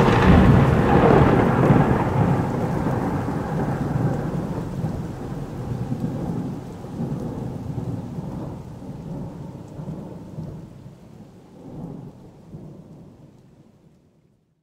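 Thunderclap with rain, the thunder rumbling on in uneven swells and slowly fading away to nothing near the end.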